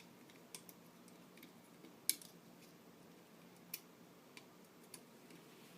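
Light, scattered plastic clicks and taps from the small spring pieces of a disassembled NutriBullet motor base being handled and pushed back into place. The sharpest click comes about two seconds in, over a faint steady hum.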